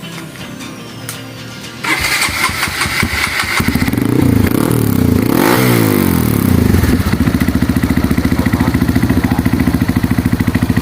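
Honda CRF150L's single-cylinder four-stroke engine starting about two seconds in. It cranks briefly, catches, is revved up and down, then settles into a steady idle.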